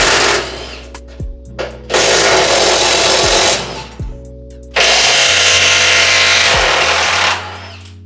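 A power tool runs in loud bursts: one cuts off just after the start, then two more last about two and two and a half seconds. Underneath is a music track with a steady beat.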